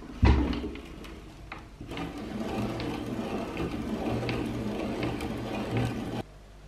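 Meat grinder grinding M&M candies: a loud knock at the start, then steady crunching and grinding as the chocolate paste is forced through the cutting plate, stopping abruptly near the end.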